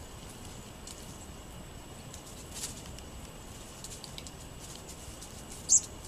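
Sparrows feeding on birdseed on a wooden picnic table: scattered light pecking taps, and one short, sharp, high chip near the end.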